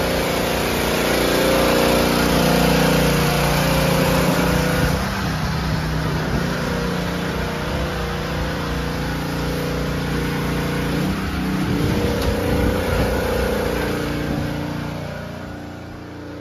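Small gas engine of a pressure washer running steadily, its engine note shifting about five and eleven seconds in, growing fainter near the end.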